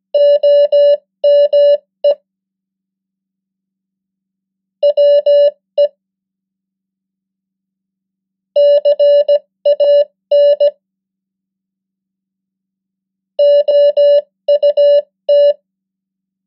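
Morse code sent as a mid-pitched electronic tone at 15 words per minute, each word a quick run of short and long beeps. One word ends about two seconds in, then three more words follow, each a few seconds after the last.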